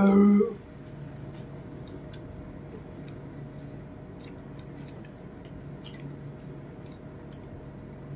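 A brief loud throaty vocal sound from the eater right at the start, then close-up eating: chewing and lip-smacking with scattered small clicks over a steady low background hum.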